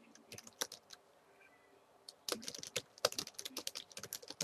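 Typing on a computer keyboard: a few scattered keystrokes, then a quick run of keystrokes from about two seconds in.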